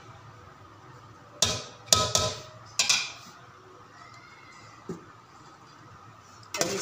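Metal spoon clanking against an aluminium cooking pot: a few sharp, ringing strikes in quick succession, a light knock, then another clank near the end.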